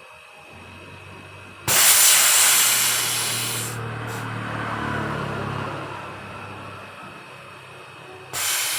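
Compressed gas blown through a freezer's evaporator tubing: a sudden loud hiss about two seconds in that tails off over several seconds, then a second blast near the end, over a low steady hum. The blow-out purges oil from the evaporator, which is now coming out dry.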